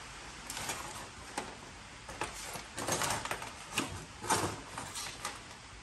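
Small pieces of scrap metal handled and tossed into sorting bins by hand: a string of short, irregular clinks and knocks.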